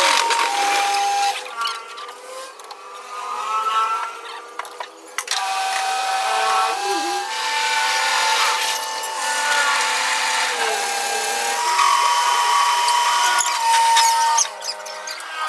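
A power tool running on metal, its whine steady for a second or two at a time and then jumping or sliding to a new pitch as the load changes.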